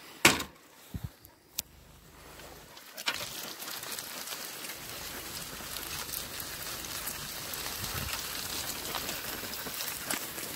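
Dog cart drawn by two Samoyeds rolling along a dirt and gravel track: the wheels and frame give a steady crackling rattle that grows louder about three seconds in. A sharp knock just after the start and a few smaller knocks in the first three seconds.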